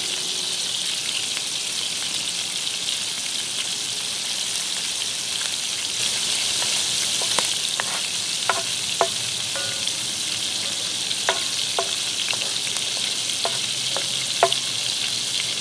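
Corn kernels and pineapple chunks sizzling steadily in melted butter in a hot pan, with a few light clicks and knocks in the second half.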